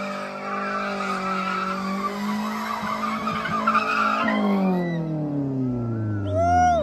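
Sedan doing a burnout: the engine is held at high revs while the spinning tyres squeal and skid. A little over four seconds in the revs fall away, and short tyre squeals follow near the end.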